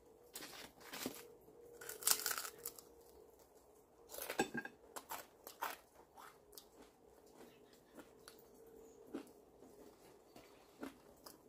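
Chewing crispy roast pork crackling: quiet, irregular crunches and crackles of the skin being bitten and chewed, with a faint steady hum underneath.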